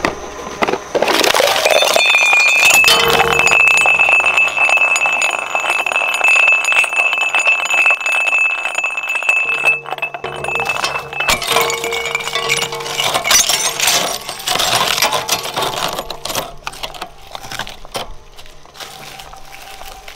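Twin-shaft shredder crushing a boxed porcelain mug: the ceramic cracks and clinks between the cutters, with a steady high whine through the first half. The crunching thins out and quietens over the last few seconds as the pieces pass through.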